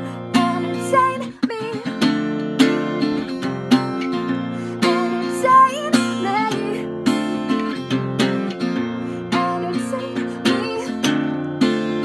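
Acoustic guitar strummed in a steady rhythm, its chords ringing, with a voice singing the melody in short phrases about a second in, in the middle and near the end.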